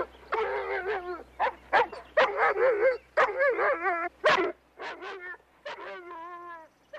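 German shepherd-type dog barking and snarling in a quick series of short calls. The last few calls are longer and waver in pitch.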